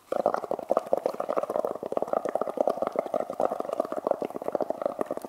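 Blowing hard through a drinking straw into a cup of paint, water and dish soap: a rapid, continuous bubbling and gurgling as soapy foam builds up in the cup.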